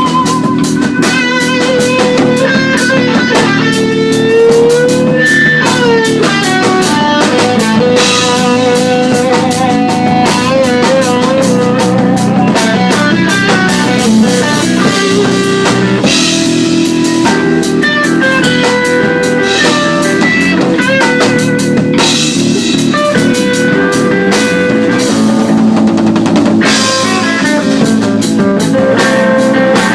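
Rock music: a lead guitar plays held notes with vibrato and pitch bends over a drum kit and backing.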